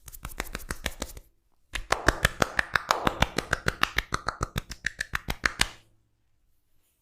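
Massage hands tapping rapidly and rhythmically on the head, about six or seven sharp slaps a second: a short run, a brief pause, then a longer run of about four seconds.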